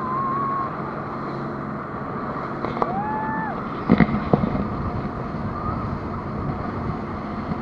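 Speedboat engine running steadily under the rush of wind on the microphone. A short high wavering call comes a little under three seconds in, and two sharp knocks about four seconds in.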